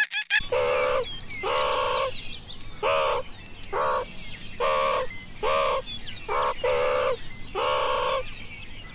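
An animal call repeated about ten times, each call about half a second long and pitched with a slight rise and fall, with small birds chirping faintly behind.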